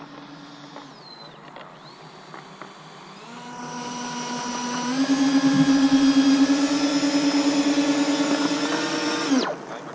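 Electric ducted fans of a large RC model jet running at taxi throttle: a steady, high whine that grows louder from about three seconds in, steps up in pitch about halfway through, and cuts off abruptly near the end.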